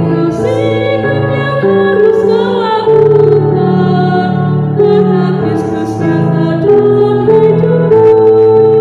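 A woman singing an Indonesian hymn, accompanied by sustained chords on an electronic keyboard.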